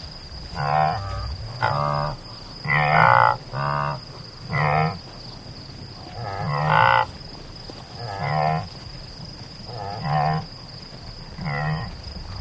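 Antelope calling: a series of about nine short pitched calls, each under a second, coming irregularly every second or so. A faint steady high tone runs behind them.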